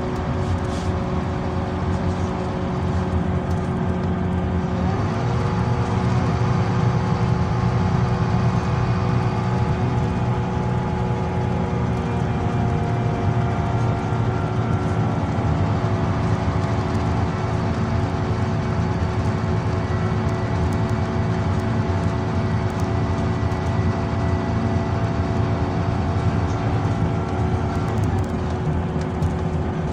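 Scania Citywide LE 12M city bus heard from inside the passenger cabin while driving: a steady low engine drone with road noise and a thin steady whine above it, growing louder about five seconds in.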